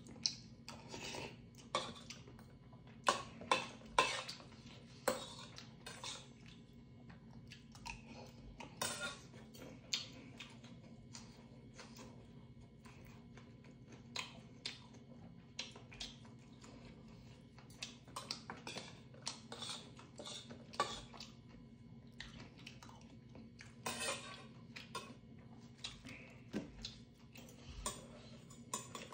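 Metal spoon and chopsticks clinking and scraping against a stainless steel bowl while eating, in many short, irregular clicks.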